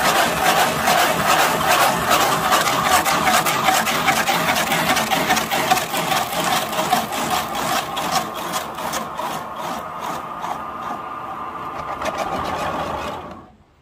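Woodworking lathe running with a cutting tool scraping into the spinning log, a steady motor hum under dense rapid scraping. It gets quieter over the last few seconds, then stops abruptly just before the end.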